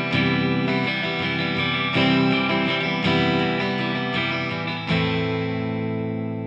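Guitar playing a slow, laid-back chord accompaniment with open strings left ringing, on A sus9 and C major 7 shapes. A new chord is struck every second or two, and the last, about five seconds in, rings out and fades.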